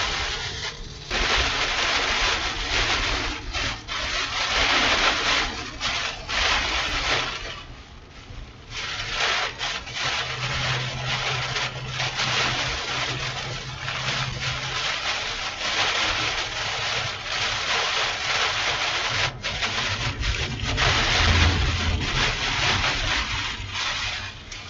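Severe thunderstorm wind and heavy rain lashing a moving vehicle, a rushing noise that surges and eases in gusts and dips briefly about eight seconds in.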